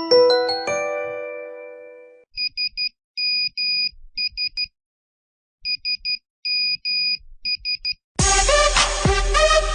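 A short chime-like run of tones rings out and dies away, then an old monophonic mobile phone ringtone beeps in a repeated pattern: three short beeps, one long beep, three short beeps, played twice with a pause between. About eight seconds in, a loud polyphonic ringtone tune starts.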